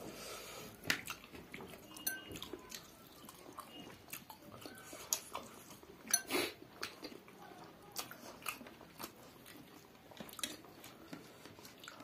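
Close-up eating sounds: chewing and lip-smacking on chicken and rice eaten by hand, with scattered short wet clicks.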